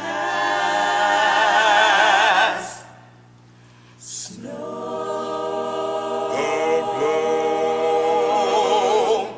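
Choir singing the closing chords of a gospel song: one chord held for about two and a half seconds, a short pause, then a long final chord with vibrato that ends near the close.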